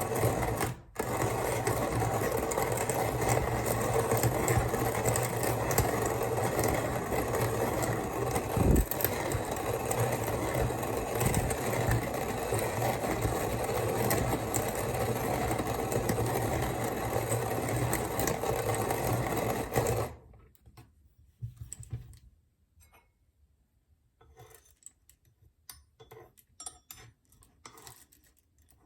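Kalita hand coffee grinder grinding coffee beans: a continuous crunching grind that breaks off briefly about a second in, then runs on for about twenty seconds and stops abruptly. Sparse faint clicks and taps follow near the end.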